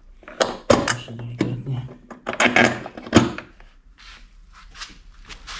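Knocks, scrapes and rattles of a cut metal bar being handled and pressed into place against an ATV's plastic front rack, in several uneven bursts with a pause in between.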